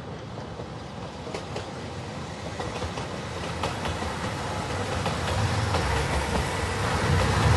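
Train approaching, growing steadily louder, with wheels clicking over rail joints and a low rumble that builds up toward the end.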